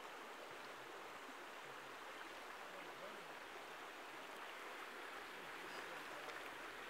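Shallow creek water flowing over stones: a faint, steady rush.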